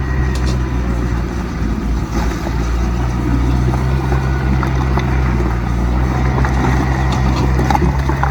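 Diesel engine of heavy earthmoving machinery running steadily, with a few scattered clicks and clanks over it.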